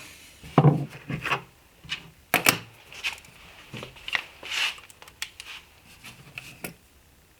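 Irregular wooden knocks and small clicks from a cabinet panel and its hinge hardware being handled and positioned on the bench, about a dozen, the loudest a double knock around two and a half seconds in.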